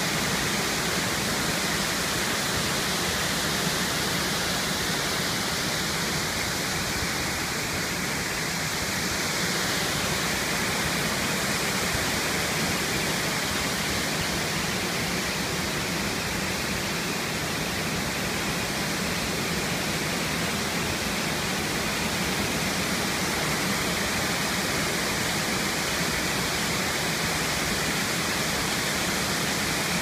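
Large waterfall pouring down stepped rock ledges into a plunge pool: a steady, full rush of falling water with no let-up.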